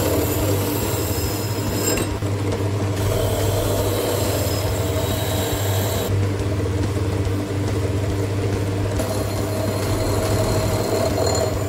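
Drill press running with a cup-shaped rust-removal attachment in its chuck, grinding rust off a steel axe head pressed against it: a steady motor hum under a high, harsh scraping. The scraping drops out briefly about two seconds in and again from about six to nine seconds in, while the motor keeps running.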